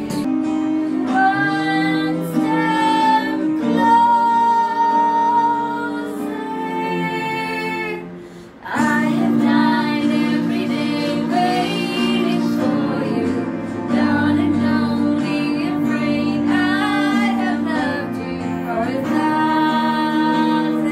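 A woman and a girl singing a song together over a karaoke backing track of steady held chords, with a brief break about eight seconds in.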